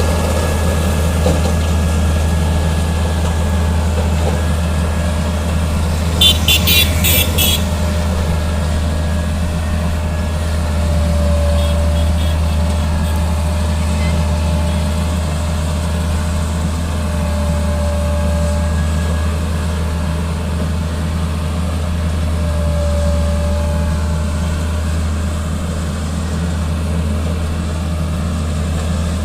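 Heavy diesel engine of road-construction machinery, most likely a motor grader, running steadily with a deep drone. About six seconds in there is a brief rapid series of sharp high-pitched clicks.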